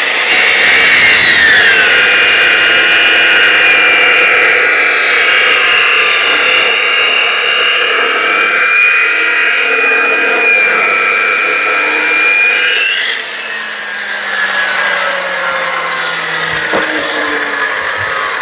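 Abrasive chop saw cutting through stainless steel tube. Its loud motor whine drops in pitch as the disc bites into the metal, then grinds steadily. About 13 seconds in, the whine rises briefly and the sound drops away as the disc winds down, slowly falling in pitch.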